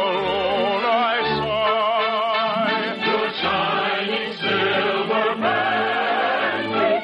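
Operetta music: a choir singing with orchestral accompaniment, the voices held with a wide vibrato over a pulsing bass line.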